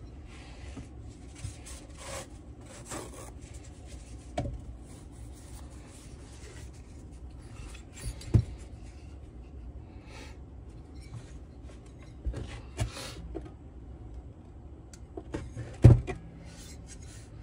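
Hand work on a Stihl TS 700/800 cut-off saw's cylinder and crankcase during teardown: metal parts rubbing and scraping, with scattered clicks and two sharp knocks, one about eight seconds in and the loudest near the end.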